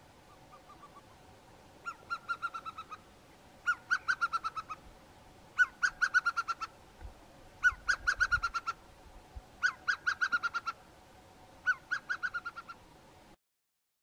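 Pale chanting goshawk calling: six phrases of rapid piping whistles, each about a second long and falling slightly in pitch, about two seconds apart, the first one faint.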